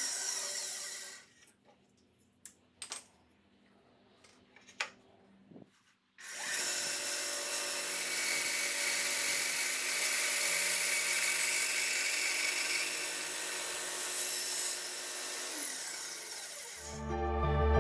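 Bandsaw running and cutting through a wooden block. It drops away about a second in, leaving near silence with a few faint clicks, then comes back about six seconds in and runs steadily for about ten seconds before fading.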